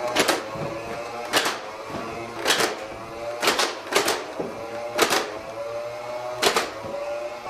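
Toy foam-dart blaster firing about seven shots at uneven intervals, each a sharp crack, over a steady pitched hum.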